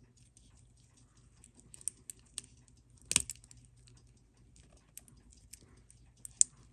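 Small metal tools clicking and tapping against a wristwatch during disassembly, with a sharper click about three seconds in and another near the end.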